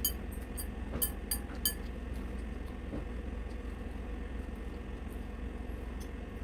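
Metal chopsticks clinking against a ceramic noodle bowl: four light clinks within the first two seconds, over a steady low hum.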